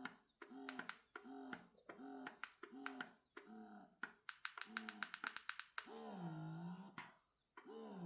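Eufy E20 wearable breast pump running, its motor whirring in short rhythmic suction cycles with clicks, about two a second, then shifting a little past the middle to slower, longer cycles about every second and a half, each falling and rising in pitch. It runs quietly.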